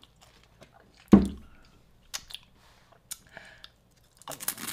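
Chewing and crunching on pork rinds, with a few short, sharp crunches. There is a loud low thump about a second in.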